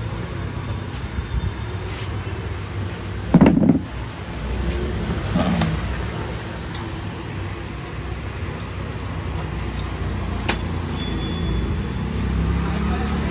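A steady low rumble, with a short dull thump about three and a half seconds in and a sharp click about ten and a half seconds in.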